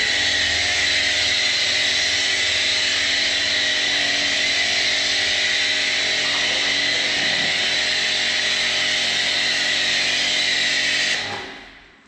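Pressure washer running with a foam cannon attached, spraying snow foam in one steady burst with a low motor hum under a loud hiss, then stopping near the end.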